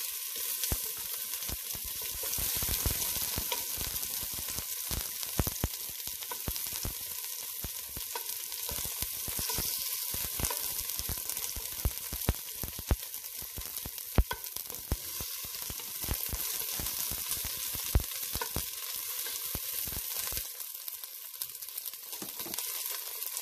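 Sliced onion sizzling in hot olive oil in a stainless steel pot: a steady frying hiss, with frequent clicks and knocks of a wooden spatula against the pot as the onion is stirred.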